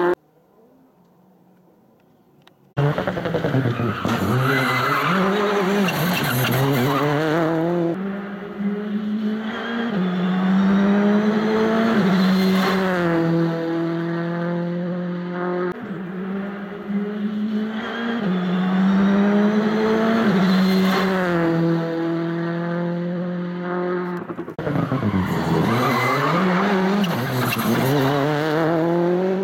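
Citroën C3 R5 rally car's turbocharged 1.6-litre four-cylinder engine driven hard, its pitch climbing and dropping again and again through gear changes and braking. It sets in after about three seconds of near silence.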